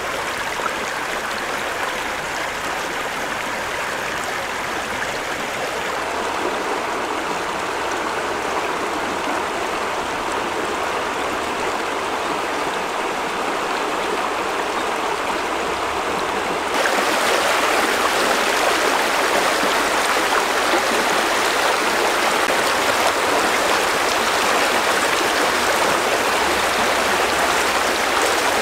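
Stream water running steadily, an even noise that turns suddenly louder and brighter a little past halfway.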